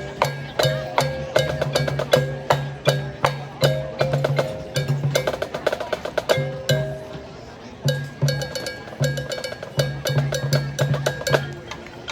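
High school marching band playing its show music. This is a percussion-heavy passage: rapid sharp clicks and struck notes over short, pulsing low notes.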